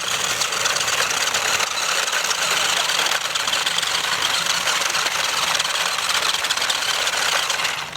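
Battery-powered remote-control toy car driving: the steady whir of its small electric motor and plastic gears.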